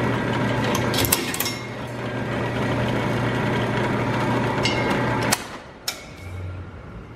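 Drill press running with its bit cutting into a metal Picatinny-rail scope riser: a steady motor hum with a few sharp metallic clicks about a second in. The hum cuts off suddenly about five seconds in, followed by a single sharp click.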